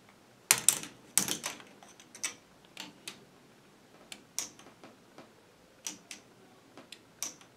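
Plastic K'NEX ball machine at work: a quick cluster of sharp plastic clicks and clatter about half a second in, then scattered single clicks at irregular intervals as its moving arm parts and ball go through their cycle.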